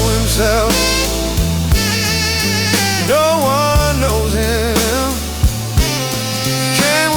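Slow dark blues music: a steady bass line and occasional drum hits under a lead melody that bends and wavers with heavy vibrato.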